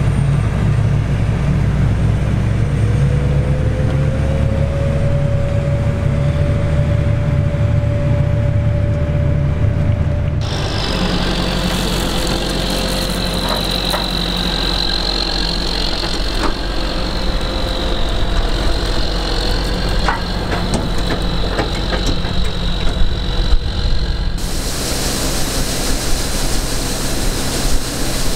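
John Deere 9520 four-wheel-drive tractor's diesel engine running steadily under load while it pulls a grain chaser bin. It is first heard as a deep rumble, then after about ten seconds as a higher sound with a steady high whine and a few knocks. Near the end a broad hiss joins in, as grain pours from the chaser bin's unloading auger.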